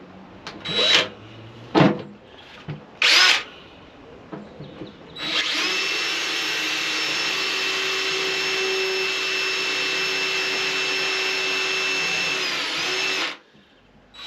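DeWalt cordless drill boring a pilot hole through the boat's bulkhead: a few short bursts, then running steadily for about eight seconds before winding down and stopping.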